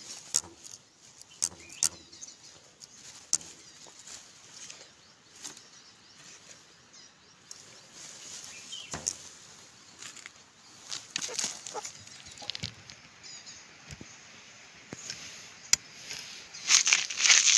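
A small spotted wild cat caught in a bamboo snare struggles, making scattered rustling and knocking against the bamboo, with a louder burst of scuffling near the end.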